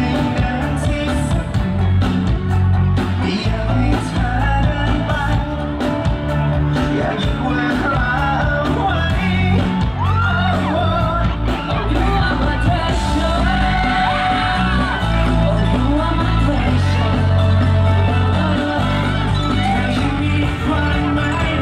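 Live pop song played loud over a concert sound system, with drums, bass and singing, and fans yelling and screaming over it.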